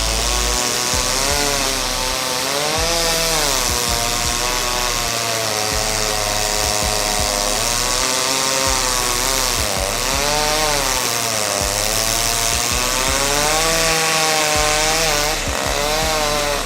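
Chainsaw running under load as it cuts through wood, its engine pitch sagging and picking up again every few seconds.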